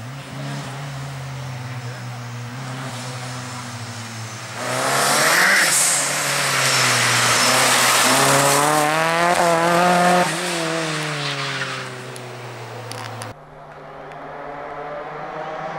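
Opel Astra Turbo rally car's engine running at speed. From about a third of the way in it gets much louder, with a rush of noise, and the revs climb and then fall back. Near the end the sound cuts abruptly to a quieter engine note that slowly builds again.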